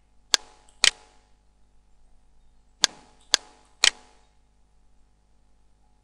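Computer mouse button clicking, five sharp clicks: two about half a second apart near the start, then three more at the same spacing around three seconds in.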